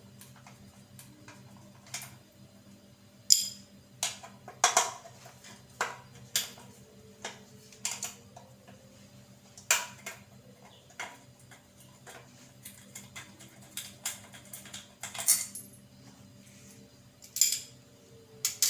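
Irregular metallic clinks and knocks of tools and metal parts being handled while a washing machine gearbox is taken apart, some strikes ringing briefly. A faint steady hum sits underneath.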